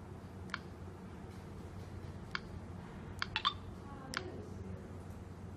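Plastic stylus tapping on the resistive touchscreen of a Wepoy S92 handheld barcode terminal: about six light clicks, three in quick succession a little past the middle, over a faint steady hum.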